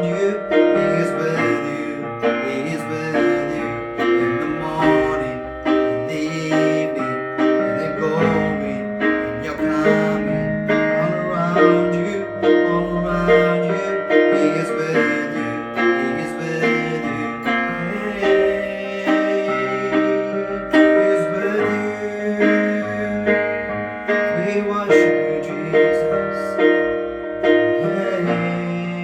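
Worship music played on a keyboard, with sustained chords changing steadily.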